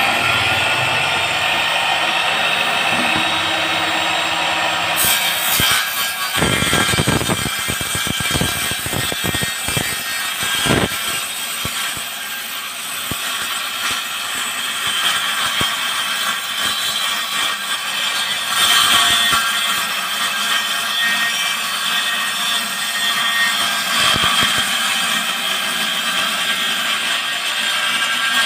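Homemade table saw with its circular blade running steadily, cutting through a wood panel that is pushed across it. Some low thumps come in the middle of the cut.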